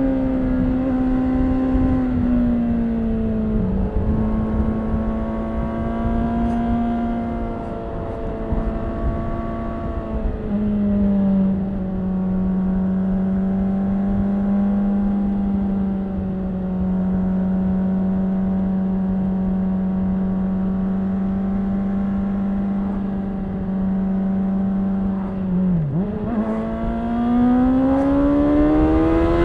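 Inline-four engine of a 2013 Honda CBR600RR with stock exhaust, heard from the riding motorcycle. It runs at a steady pitch, settles lower about ten seconds in and holds there, over a low road rumble. About 26 seconds in the pitch dips briefly, then rises steadily as the bike accelerates.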